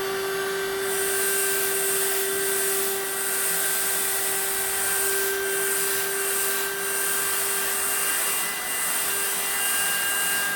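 Model 2008 12-volt car vacuum cleaner running with a steady motor whine while sucking up rice through its extension hose. A hissing rush of grains through the hose starts about a second in, drops out briefly a few times, and stops near the end.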